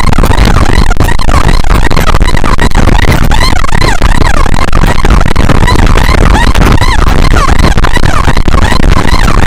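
An electronic siren warbling in fast rising-and-falling sweeps, a few per second, over a heavy low rumble of wind and engine noise on the move.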